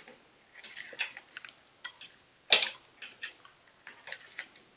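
Light, irregular clicks and taps of metal tools and parts being handled while a road-bike brake-shifter is loosened from the handlebar. One sharper, louder click comes about two and a half seconds in.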